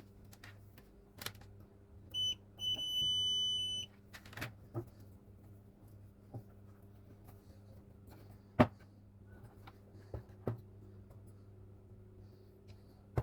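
An electronic beep, a short chirp followed by a steady high tone about a second and a half long, over a low, steady mains hum and scattered small clicks of handling.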